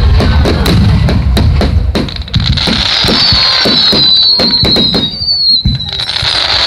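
Aerial fireworks going off in quick succession: many sharp bangs and crackles over a continuous deep rumble of booms.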